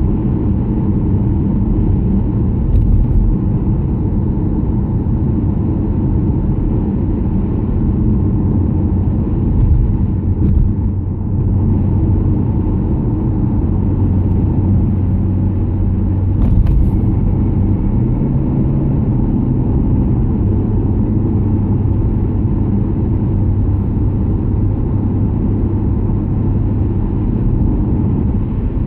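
Steady low engine and road rumble of a car cruising, heard from inside the cabin.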